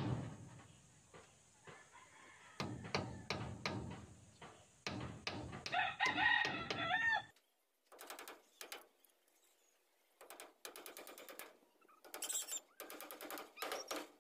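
A hand tool striking a wooden post again and again, a few blows a second, with a rooster crowing about six seconds in. Over the second half come short bursts of rapid tapping.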